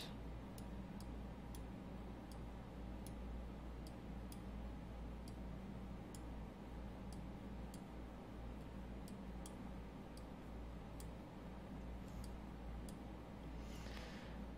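Faint, sharp clicks, roughly two a second and somewhat uneven, over a low steady electrical hum, with a short soft hiss near the end.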